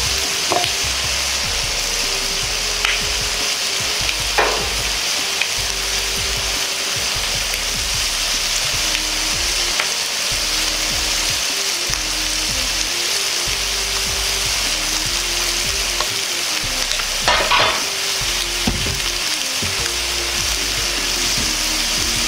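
Chicken skin and chicken scraps frying in a frying pan, searing and rendering their own fat: a steady sizzle with a few sharp pops, the loudest cluster about 17 seconds in.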